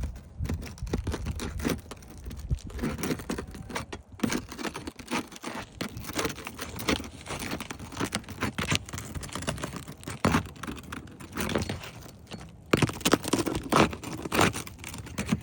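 Hammer and pry bar working loose tar-sealed asphalt roof shingles: an irregular run of scraping, clicking and crackling as the seals break and the brittle shingles tear. Wind buffets the microphone underneath.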